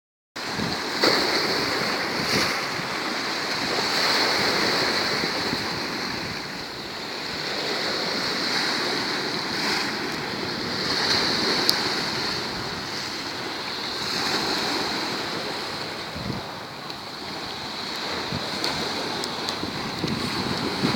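Black Sea surf breaking and washing on the shore, swelling and ebbing every few seconds, with wind buffeting the microphone.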